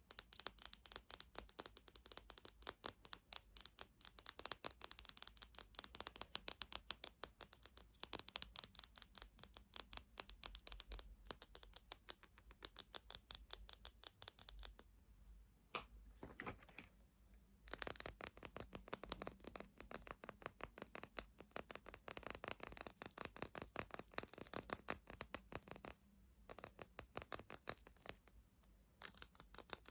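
Fast fingernail tapping on small cosmetic containers, many light clicks a second, pausing briefly about halfway through and again near the end.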